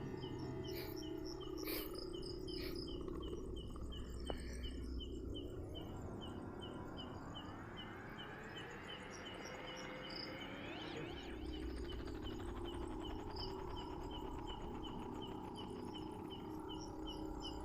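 Night insects chirping in a steady rhythm, about two to three short chirps a second, over a low background hum; through the middle a faint whine slowly rises in pitch and then fades.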